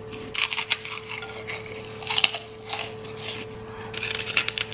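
Crisp crunching of a kerupuk putih, a white puffed Indonesian cracker, being bitten and chewed close to the microphone: several irregular clusters of crunches, the loudest about two seconds in and again near the end.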